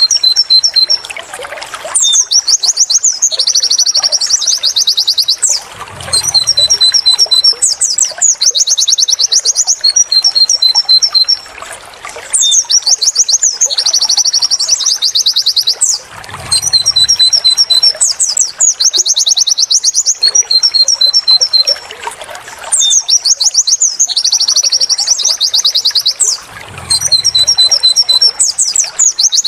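White-eye (pleci) song repeated as a training loop: fast, high chattering trills and quick runs of short 'wit wit tulit tulit' notes. The same phrase comes back about every five seconds with brief gaps between.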